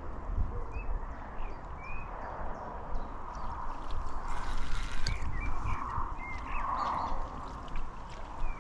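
Small birds chirping in short, repeated calls over riverside water noise and a low rumble.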